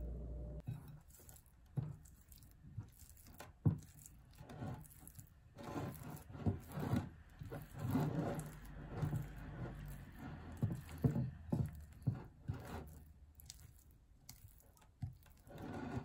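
Silicone spatula mashing and stirring soft cream cheese in a ceramic bowl: irregular squishing and scraping strokes, with a few sharper taps against the bowl.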